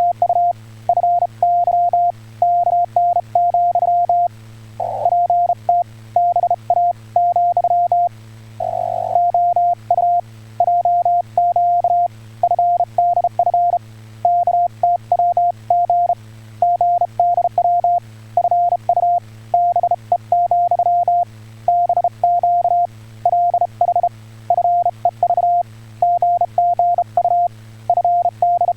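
Amateur radio CW (Morse code) tone keyed on and off in dots and dashes at a single steady pitch, sending Korean (Hangul) Morse code in a two-way radio contact. A steady low hum runs underneath.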